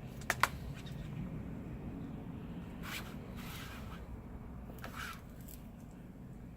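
Small handling noises of phone-repair work: two sharp clicks just after the start, then a few brief rustles about three and five seconds in, over a faint steady low hum.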